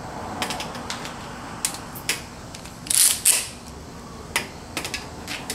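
White plastic clothes hangers clicking and clattering as they are handled. It is a string of sharp, irregular clicks, the loudest a quick pair about three seconds in.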